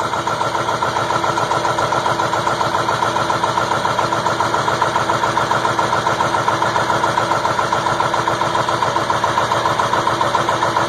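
2002 Ford F-350's 7.3 Powerstroke V8 turbo-diesel idling steadily with an even, rapid pulse, cold, just caught after a long hard start.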